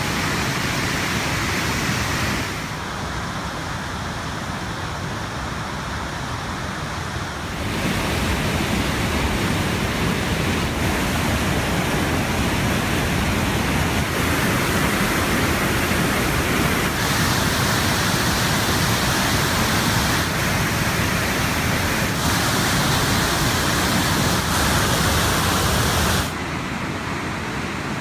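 Athabasca Falls, a powerful 80-foot waterfall, with its mass of churning water making a loud, steady rush. The sound shifts abruptly in loudness and tone several times.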